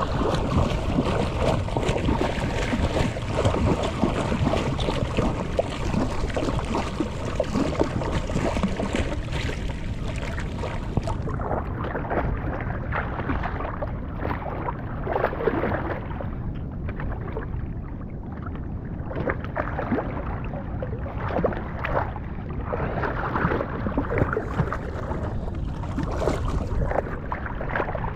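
Sea water sloshing and splashing close to the microphone, with wind noise, from a fisherman floating on an inner tube in choppy surf. The sound turns more muffled about eleven seconds in.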